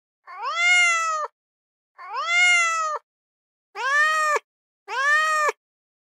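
Domestic cat meowing four times: two drawn-out meows, then two shorter ones, with silence between each.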